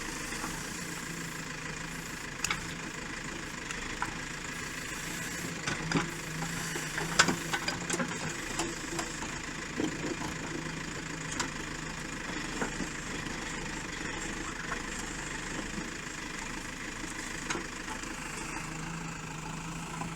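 Excavator's diesel engine running steadily while it digs trenches, with scattered sharp knocks, the loudest about seven seconds in.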